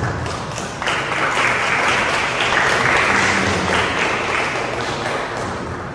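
Audience applauding: many hands clapping, swelling about a second in and tapering off near the end.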